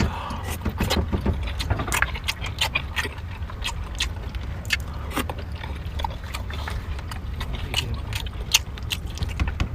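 Eating out of an old metal lunch box: many short clicks and clinks of utensils against the tin and chewing noises, over a steady low hum.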